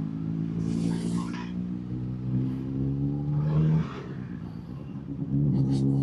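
Keeway XDV250 scooter's 250cc engine running at low speed while moving forward. It eases off a little past the halfway point and picks up again near the end.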